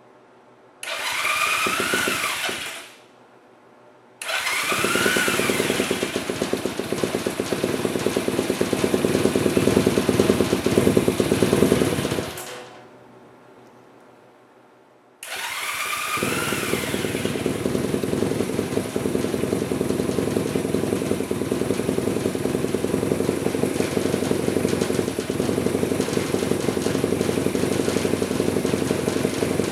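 1972 Honda CB175's small parallel-twin four-stroke engine on its first start attempt after sitting. The electric starter whines briefly, then cranks again until the engine fires and runs for about eight seconds before dying. About fifteen seconds in it is cranked once more, catches and keeps running steadily.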